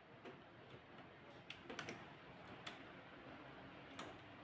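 Quiet, scattered small plastic clicks and taps, about half a dozen, as wiring connectors are pressed into a stripped-down HP LaserJet P1102 laser printer's frame.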